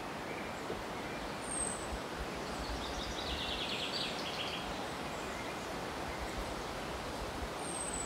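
Steady outdoor background noise with faint small-bird calls: a quick trill about three seconds in and a couple of short, high, thin falling chirps.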